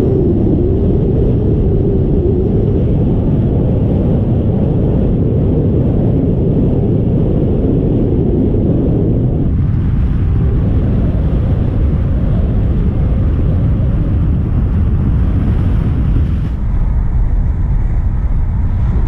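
Wind rushing over the microphone of a camera mounted on a paraglider in flight: a loud, steady, deep rumbling noise that eases a little about halfway through.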